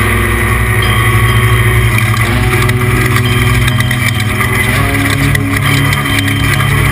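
Off-road race truck engine heard from inside the cab, running hard at steady revs, its pitch stepping up about two-thirds of the way through.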